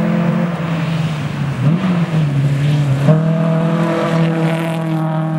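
Rally car engine running hard at high revs. Its pitch dips and climbs again around two seconds in, then steps up suddenly at about three seconds and holds steady.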